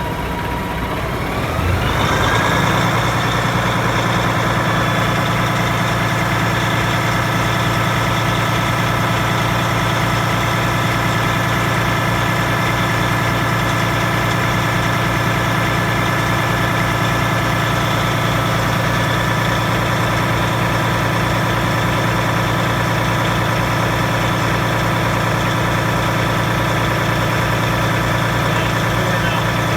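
Paccar MX diesel truck engine catching about two seconds in, its pitch climbing briefly as it picks up speed, then settling into a steady idle. It is a hard-starting engine whose fuel system had been hand-primed.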